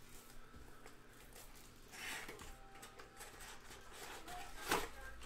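Plastic shrink wrap crinkling as it is torn off a trading-card hobby box, with a brief rustle about two seconds in and a single sharp tap near the end.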